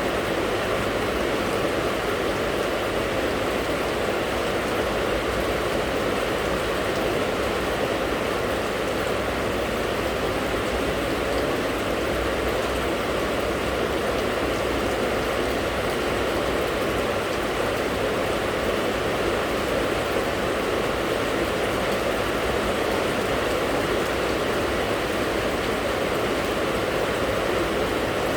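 Steady rain falling, an even rushing hiss that holds unchanged throughout.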